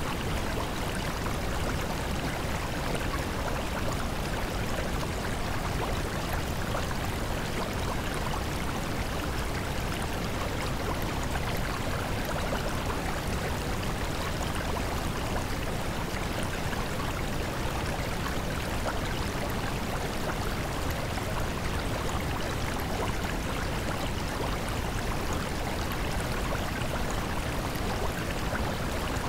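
Steady, unchanging rushing noise like flowing water or white noise: the masking sound of a subliminal affirmation track, with the affirmations not audible as speech.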